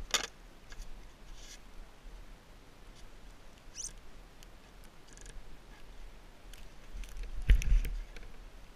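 Scattered faint crunches and rustles of someone moving about in deep powder snow, with a louder low thump and rumble near the end.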